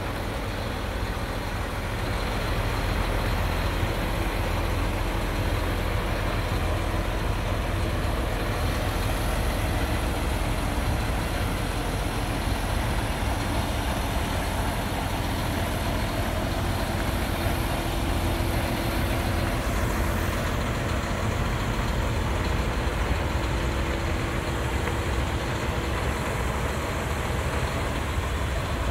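Large truck diesel engine, the MAN TGA 33.480's straight-six, idling steadily with a low rumble.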